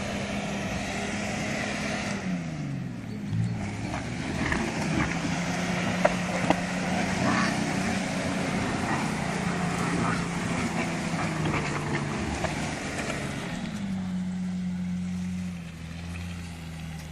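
An off-road vehicle's engine running as it drives, its pitch dropping and rising again with the throttle, then settling lower near the end. Scattered sharp knocks and rattles come in the middle of the stretch.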